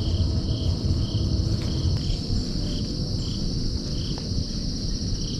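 Insect chorus of crickets: a steady high trill with a lower, pulsing call repeating at an even rate, over a low rumble.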